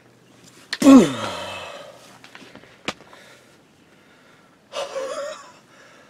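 A man's excited gasping cry about a second in, falling steeply in pitch, then a sharp click near the middle and a second, shorter breathy exclamation near the end.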